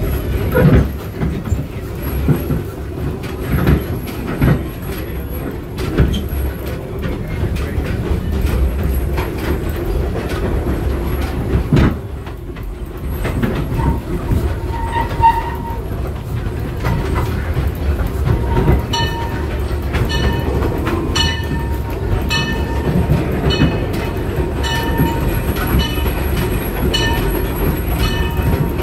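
Narrow-gauge train cars rolling along the track, heard from an open passenger car: a steady low rumble with knocks and clatter. From about halfway on come short, high-pitched squeals of the wheels, repeating every second or so.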